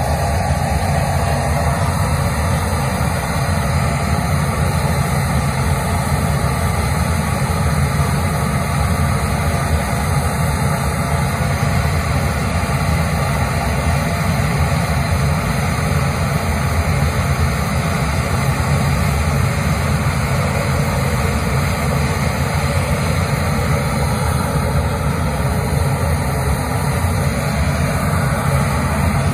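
Steady, loud engine drone with a heavy low rumble and a hiss over it, unchanging throughout.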